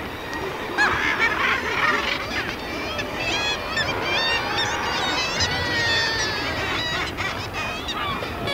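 Many seabirds calling over one another, loud and overlapping, with a run of quick repeated wavering calls through the middle, over a steady wash of background noise.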